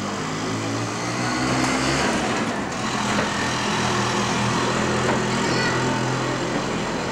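Engine of a motor vehicle running at a steady pitch over street noise, growing louder about a second and a half in and easing off near the end.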